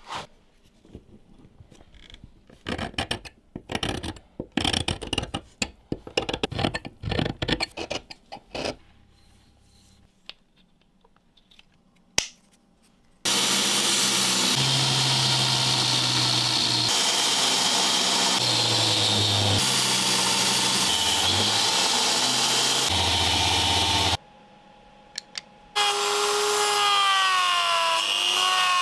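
Belt grinder sanding a stabilized birch knife-handle scale, a loud steady grinding that runs for about ten seconds in the middle. Near the end comes a handheld rotary tool's sanding drum on the wood, a high whine whose pitch dips and recovers as it bites. Before these, in the first nine seconds, come irregular scraping and rubbing strokes.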